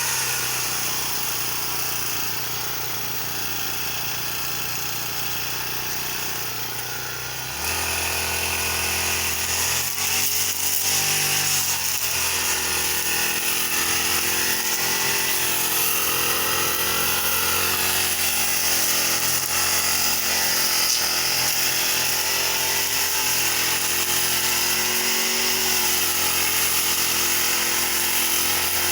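Petrol brush cutter (grass trimmer) engine running, revving up sharply about seven and a half seconds in and then holding at high throttle with its pitch wavering.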